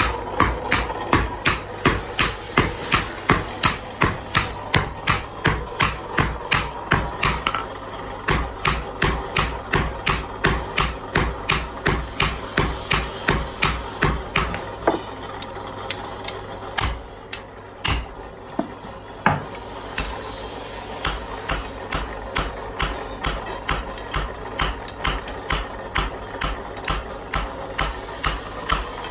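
Hand-forging a red-hot talwar blade on an anvil: hammer blows fall in a fast, steady rhythm of two to three a second. About halfway through they thin to a few single strikes, then resume somewhat lighter, over a faint steady hum.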